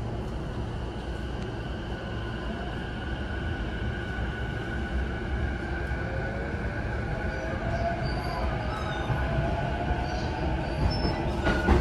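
JR East E233 series 0 electric commuter train running, heard from inside the passenger car: a low rumble of wheels on rail under steady whining tones from the traction motors and inverter, growing gradually louder.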